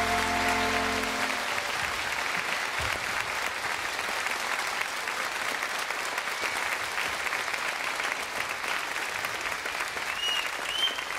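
A studio audience applauding, steady and dense, as the last held chord of a song dies away about a second in.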